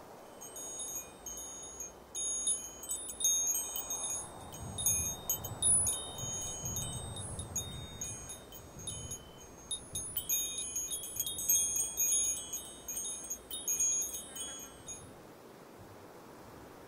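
Wind chimes tinkling: many high, overlapping ringing notes at different pitches that stop about fifteen seconds in.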